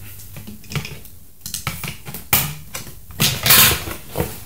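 Scissors snipping the ties that hold a plastic toy horse in its cardboard packaging tray, with scattered clicks and knocks as the toy and packaging are handled, and a longer, louder rustle a little over three seconds in.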